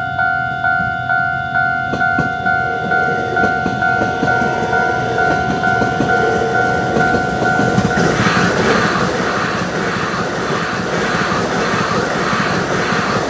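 A level-crossing warning bell dings steadily, about two and a half strikes a second, as an electric multiple-unit train approaches with a growing rumble. From about eight seconds in, the train passes close by: a loud rhythmic clatter of wheels over rail joints drowns out the bell.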